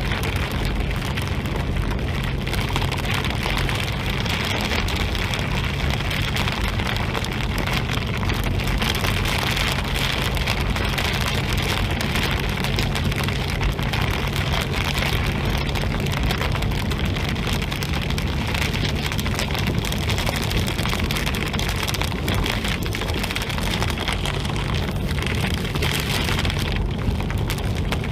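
Heavy rain pelting the roof and windshield of a moving car, a dense steady patter of countless drops over a constant low engine and road hum.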